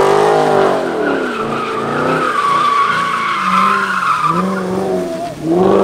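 Chevrolet Camaro doing donuts on wet pavement: the engine revs up and down again and again as the rear tires spin, with a long tire squeal through the middle and another rev surge near the end.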